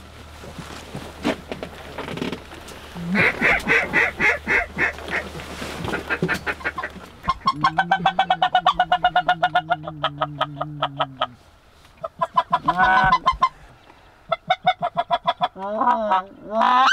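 Geese calling in several runs of rapid, repeated yelping notes, with single honk-like calls near the end; this is the laughing call of specklebelly (white-fronted) geese. The longest run, held for about four seconds midway, has a lower steady note under it.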